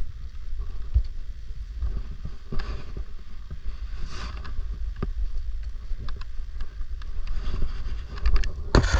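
Wind rumbling on the microphone, with short scraping and rustling handling noises every second or two that are loudest near the end.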